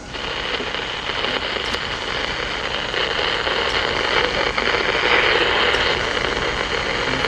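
Loud, steady hiss of static from a small portable television tuned to an empty UHF channel, switching on suddenly, with a few faint clicks in it.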